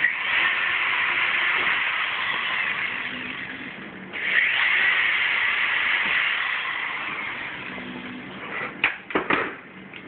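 Corded electric drill boring two rivet holes one after the other through the aluminium angle and screen frame, each run lasting about four seconds. Several sharp knocks follow near the end.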